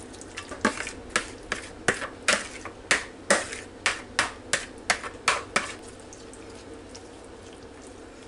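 Metal spoon scraping and knocking against a mixing bowl as a thick creamy casserole mixture is scraped out into a glass baking dish: a quick run of about a dozen short scrapes and knocks, roughly two a second, stopping about five and a half seconds in.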